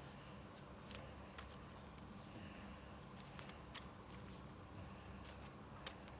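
Faint, irregular crisp clicks and crinkles of paper strips being folded over one another by hand.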